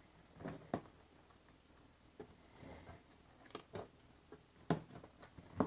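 Several light, sharp knocks and soft rubbing as a rubber-jacketed welding cable and MIG torch lead are pulled through a cut-out in a plastic Milwaukee Packout crate.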